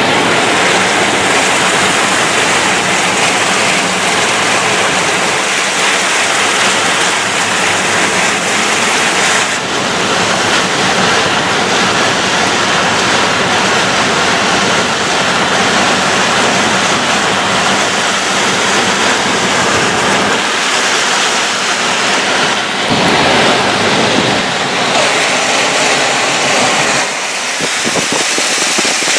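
Heavy tropical-storm rain pouring down, a loud steady rushing hiss, mixed with wind buffeting the microphone. The noise shifts abruptly a few times.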